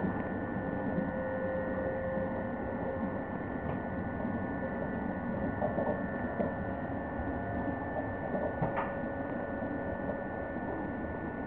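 Cabin noise of a Škoda-built EJ575 double-deck electric train running at speed: a steady rumble with a steady high whine over it. A short click comes about nine seconds in.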